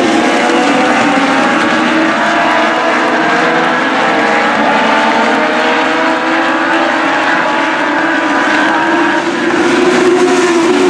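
A field of Legends race cars running laps, their Yamaha motorcycle engines making a steady, loud drone of several overlapping engine notes that slowly rise and fall in pitch as the cars circle the track.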